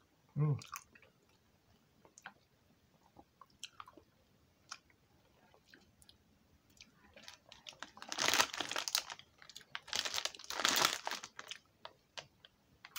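A person chewing a soft, chewy HI-CHEW candy close to the microphone, with small wet clicks and smacks. A brief low hum comes just after the start. Two louder noisy spells of about a second each come around eight and ten seconds in.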